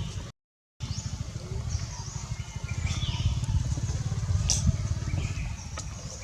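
Small birds chirping in short, pitch-sliding calls over a steady, fluttering low rumble. The sound cuts out completely for about half a second near the start.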